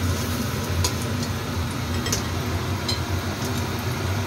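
A few slices frying gently in shallow oil in a wok, a light sizzle with a few faint ticks of spattering oil over a steady low hum.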